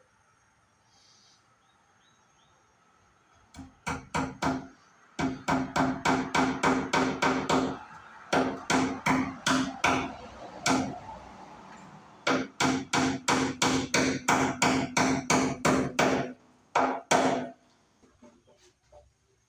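A hammer driving cable staples into wooden wall studs to fasten electrical wire. Quick, sharp blows come about four a second in several bursts with short pauses, each with a short ring. They start a few seconds in and stop shortly before the end.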